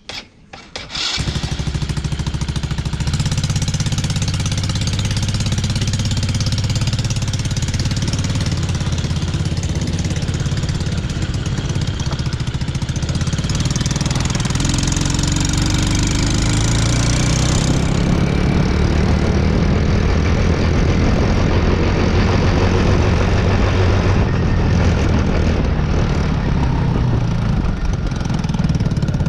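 The small 125 cc single-cylinder engine of a Taotao Boulder ATV running, coming up loud about a second in and holding a steady run. The ATV barely moves under its own power; the owner suspects a blown head gasket.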